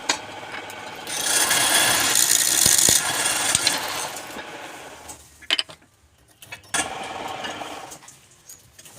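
A spinning wooden workpiece on a lathe being worked by a turning tool or abrasive, making a rasping hiss. It is loudest for a few seconds, fades about halfway through, stops briefly with a few clicks, then resumes more quietly.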